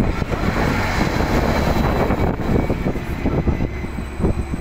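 Greater Anglia Class 755 bi-mode train standing at the platform with its engines running, a steady drone with a faint high whine. Gusty wind buffets the microphone over it.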